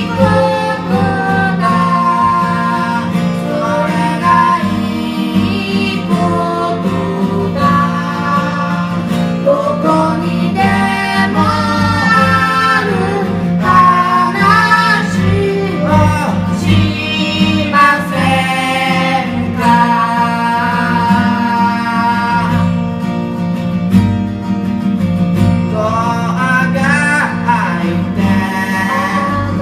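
A song: a singer's melody over guitar accompaniment.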